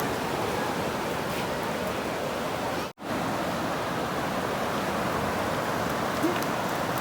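Steady rushing wash of sea surf at the shore. It cuts out for an instant about three seconds in.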